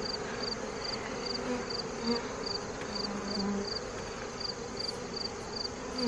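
Honey bees buzzing around an opened hive, with an insect chirping behind them in even pulses about three times a second.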